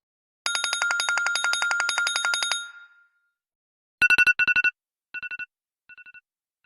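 Apple iPhone ringtone playing: a fast electronic trill of about ten pulses a second on one high note for about two seconds. After a pause of about a second comes a burst of quick high beeps, repeated several times, each fainter than the last, like an echo dying away.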